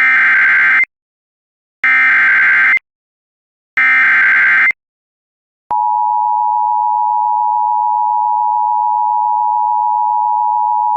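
Emergency Alert System SAME header: three short bursts of digital data tones, about a second apart. A steady attention-signal tone follows, starting a little under six seconds in, which announces a new warning.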